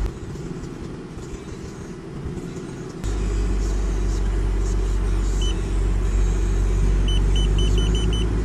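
Car engine idling with a steady low rumble, softer for the first three seconds and then back in full. Near the end a quick run of short high electronic beeps repeats about four times a second.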